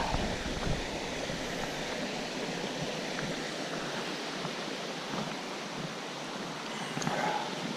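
Creek water rushing steadily over rapids and boulders.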